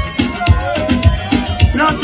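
Dance music played loud, with a steady bass beat about twice a second and a melody line over it.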